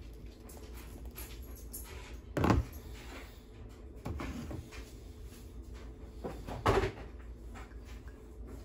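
Knocks and clatter of kitchen things being handled on a counter: two loud knocks about four seconds apart, the first about two and a half seconds in, with a softer clatter between them.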